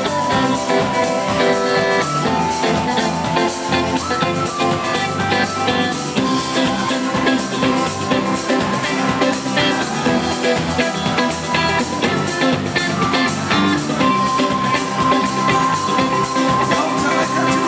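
Live band playing an instrumental passage with no vocals: drum kit keeping a steady beat on the cymbals, electric and acoustic guitars, and a keyboard carrying a bright, held melody.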